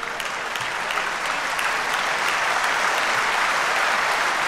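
Audience applauding in a large hall. The applause builds over the first couple of seconds, then holds steady.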